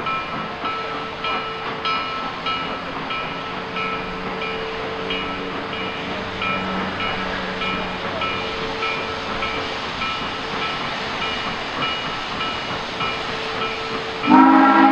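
Steam locomotive No. 734, a 2-8-0, approaching with its bell ringing steadily about twice a second over a hiss of steam. Near the end its steam whistle starts to blow loud, a chord of several tones.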